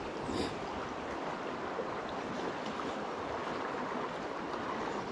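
Steady rush of a fast-flowing trout creek, running water with no pauses.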